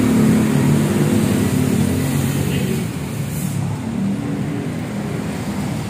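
A motor vehicle engine running steadily, its pitch shifting slightly and its level dropping a little about halfway through.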